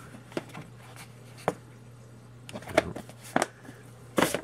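Large plastic Mitutoyo caliper case being handled: a handful of sharp plastic clicks and knocks as its lid is shut and it is laid down on other instrument cases, over a low steady hum.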